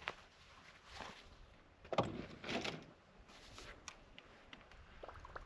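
A sharp knock, then several scraping thumps about one and two seconds in, with faint ticks near the end.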